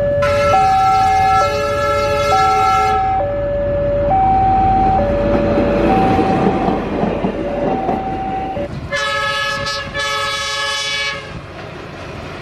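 BB302 diesel locomotive passing close by, blowing its horn in a long blast at the start and again in two short blasts about nine seconds in, with the rumble and clatter of the train on the rails between. A two-note alternating warning tone keeps sounding under it.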